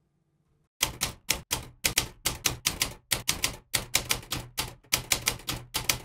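Typewriter keys struck in a fast, slightly uneven run of about two dozen sharp clacks, starting about a second in: a typing sound effect for text appearing on screen.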